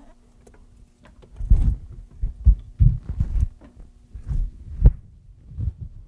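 A run of dull, low thumps and knocks, about eight in four seconds, from hands-on work on a car's front strut assembly, with a faint steady hum underneath.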